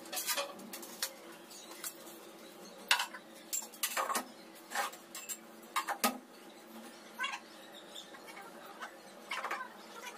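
Irregular light clinks and knocks of tools and metal hardware being handled, a dozen or so scattered over several seconds, over a faint steady hum.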